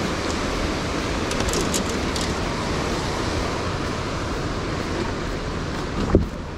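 Steady rush of a rocky mountain river's whitewater, with a single dull knock about six seconds in.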